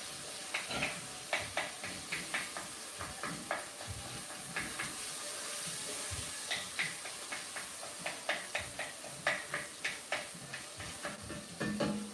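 Wooden spoon stirring sausage and garlic frying in a saucepan. Irregular light knocks of the spoon against the pot, about two or three a second, over a steady sizzling hiss.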